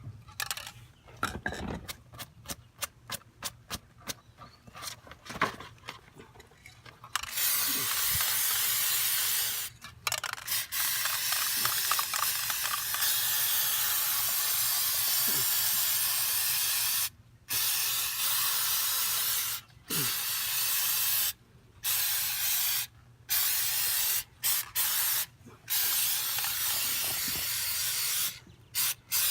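Aerosol can of 3M Super Trim Adhesive spraying: a few short spurts at first, then long bursts of steady hiss with brief pauses between them, ending in short spurts again.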